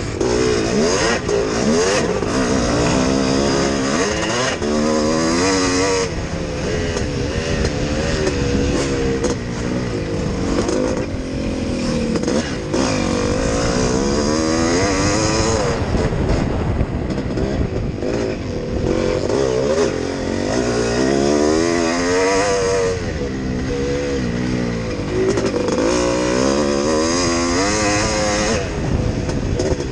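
Yamaha YZ465 two-stroke motocross engine under race load, revving up and dropping back again and again as the rider shifts and rolls off the throttle, with wind rushing over the helmet-mounted microphone.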